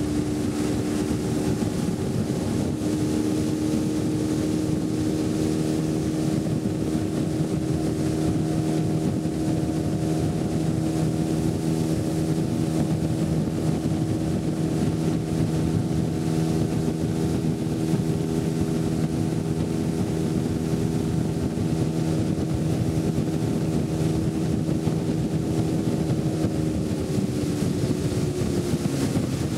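A small motorboat's engine running at steady cruising speed, one even drone. Near the end the pitch drops as the engine slows.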